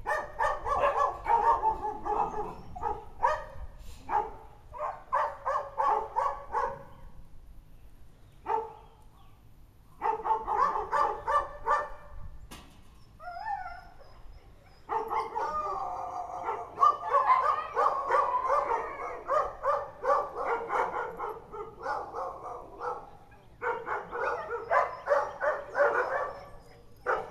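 German shepherds barking in long runs of quick barks, in bouts broken by short pauses.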